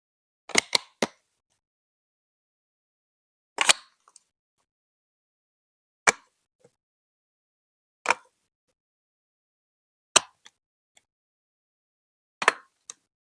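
Plastic Lego Duplo bricks being set down and pressed into place, one sharp click or clack at a time. Three quick clacks come at the start, then single ones about every two seconds, and a double click near the end.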